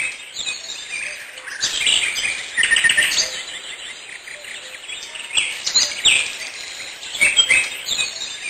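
Songbirds singing, with quick trills and short high chirps overlapping one another.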